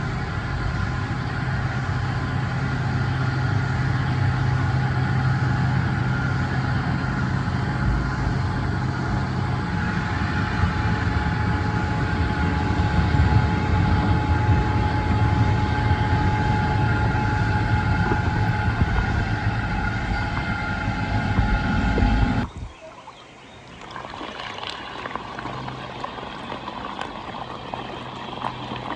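Beatbot Sora 10 robotic pool cleaner running in the pool, a steady motor hum with a constant whine over water noise. About 22 seconds in it cuts off suddenly, leaving softer water trickling and splashing.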